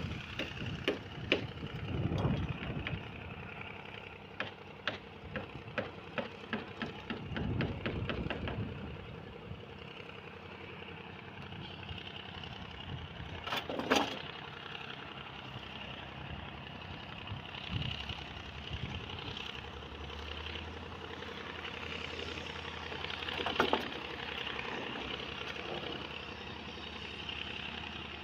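Construction-site engine, likely the crane's, running steadily throughout. In the first part comes a quick run of sharp metallic knocks, then two louder single bangs, one about halfway through and one near the end. A lower engine hum joins about two-thirds of the way in.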